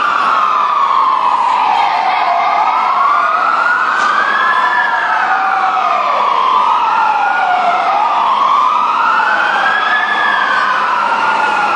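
Several fire truck sirens wailing at once, their slow rising and falling sweeps overlapping, each rise and fall taking a few seconds.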